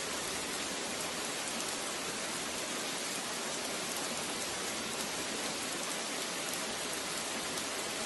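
Steady, even hiss of rain falling, with a faint crackle of drops.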